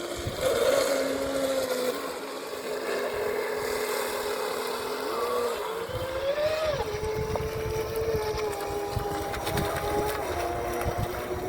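Traxxas M41 remote-control boat running on the water: a motor whine whose pitch shifts with the throttle, climbing about two-thirds of the way in and then dropping back, over the hiss of the hull on the water.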